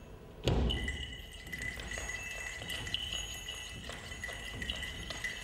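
A sudden thump about half a second in, followed by a steady high ringing tone on two pitches, with a light jingling flicker over it.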